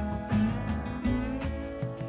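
Background music: a guitar-led track with a steady beat and a pulsing bass line.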